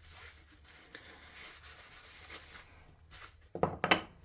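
Cloth rubbing over an oiled wooden coaster, wiping off the excess tung oil, then two sharp knocks near the end.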